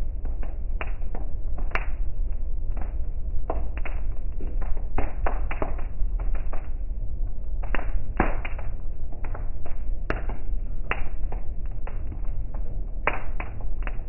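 Raindrops striking the car's windshield and roof, heard from inside the cabin as irregular taps, a few a second, over a steady low rumble of the car on the road.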